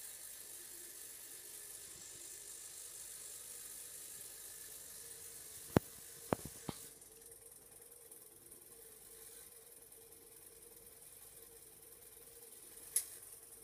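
Hoover washing machine early in its cotton cycle: a faint steady hiss, then three sharp clicks about six seconds in, after which the hiss drops away, and a single click near the end.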